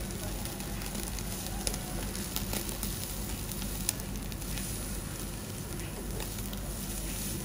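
Beef sizzling on a wire-mesh grill over charcoal, a steady frying hiss with a few sharp clicks and pops scattered through it.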